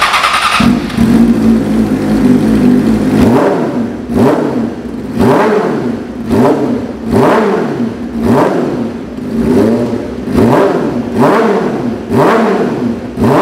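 Yamaha R6 four-cylinder engine breathing through an FJ Project slip-on silencer on the stock header, firing up and then revved in quick throttle blips about once a second, each one rising and falling in pitch. The sound is sharp, shrill and rough.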